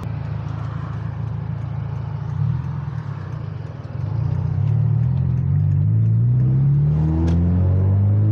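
Turbocharged Subaru WRX flat-four exhaust through a catless downpipe, running steadily at low revs. About four seconds in it gets louder and the engine note climbs steadily as the car accelerates hard.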